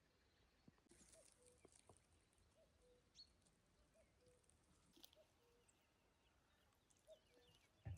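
Faint distant birdsong: a low two-note call, a short higher note dropping to a lower held one, repeating about once a second, with scattered faint high chirps over it.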